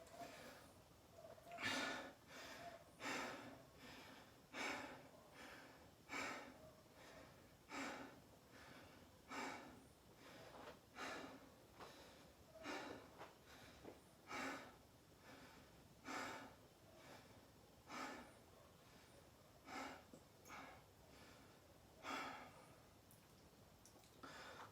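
A person breathing hard through the nose and mouth, one breath about every second and a half, winded from a set of burpees.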